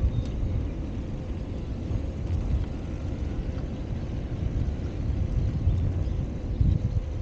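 Wind buffeting the microphone of a handlebar-mounted camera on a moving bicycle: an irregular low rumble, with a faint steady hum underneath.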